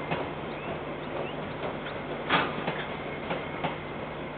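Freight train wagons rolling past at a distance: a steady rumble with irregular clicks and knocks of the wheels over the rail joints, the loudest about two seconds in.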